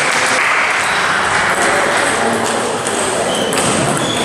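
Table tennis balls clicking against bats and tables, from the rally and the neighbouring tables, over a steady hubbub in a large sports hall.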